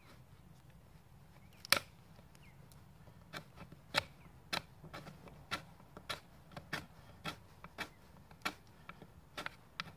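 Knife working a dry stick of firewood into kindling: sharp wood cracks and clicks, one loud crack about two seconds in, then roughly two a second.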